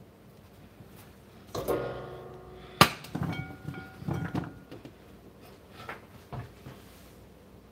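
Damp crinkle-cut potato fries tipped out of a paper towel into a ceramic bowl: paper rustling and the fries dropping in, with a few knocks that set the bowl ringing briefly, the sharpest knock about three seconds in.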